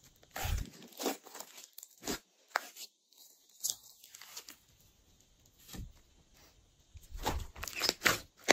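Glossy slime being squished, pressed and stretched by hand, giving irregular sticky clicks and pops with a few soft low thumps. The sounds pause for a moment in the middle, then come thicker near the end.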